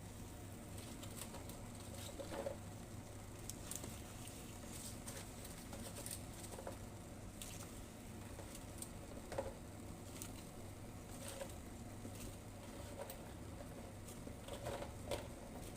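Pot of herbal cough remedy simmering: faint, irregular bubbling pops and ticks over a steady low hum, with a few slightly louder pops.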